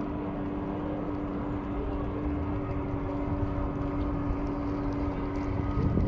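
A motorboat engine running steadily with a constant, even hum.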